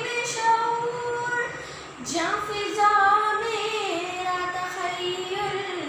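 A boy singing unaccompanied, holding long, drawn-out notes, with a short break for breath about two seconds in.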